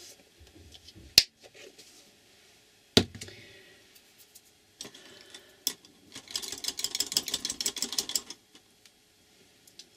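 Handling sounds at a craft table: two sharp clicks about one and three seconds in, then about two seconds of rapid clattering ticks, like small hard craft tools or brushes being handled.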